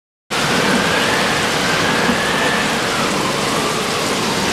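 Loud, steady rushing noise that starts abruptly just after a brief silence, with a faint tone slowly wavering up and down through it.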